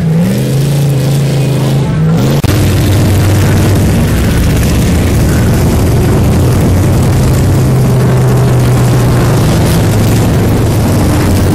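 Off-road race trucks' engines running hard and loud on a dirt track, a steady engine drone. About two seconds in, the engine note drops lower and gets louder, then holds.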